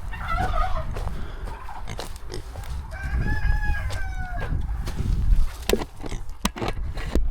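A rooster crowing once: one long, held call about three seconds in, after a shorter call near the start. Several knocks follow near the end, over a steady low rumble.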